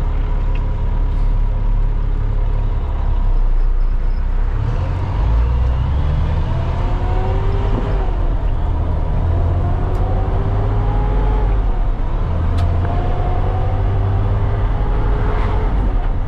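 Loaded cement mixer truck driving on the highway, heard from inside the cab: a steady low diesel engine drone with road noise, and a fainter whine that rises slowly in pitch several times.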